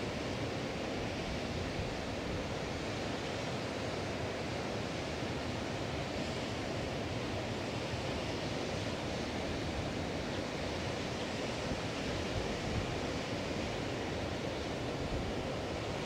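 Atlantic Ocean surf on the beach, an even, unbroken rush with no single wave crash standing out.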